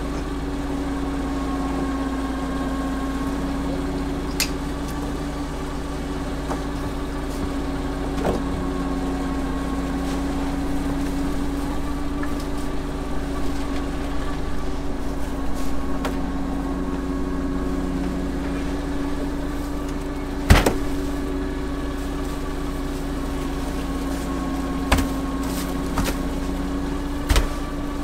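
Steady engine hum with an even low pitch, broken by a few sharp knocks, the loudest about two-thirds of the way through and more near the end.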